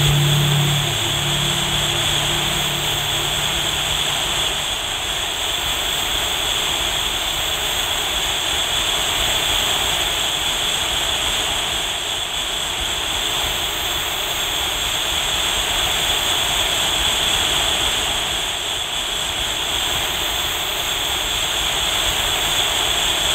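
A steady rushing noise drone, like the roar of a jet engine, holding level throughout, with a low held musical chord fading out over the first few seconds.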